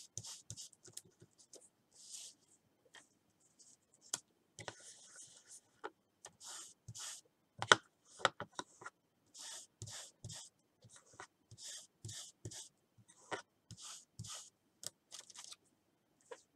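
Short scratchy rubbing strokes on paper, repeated at an uneven pace of up to about two a second, with a few light taps and clicks between them.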